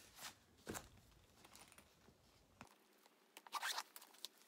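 Clear plastic packaging of a bed sheet set rustling and crinkling as it is handled: a few short rustles early, then a quick flurry of sharp crinkles about three and a half seconds in.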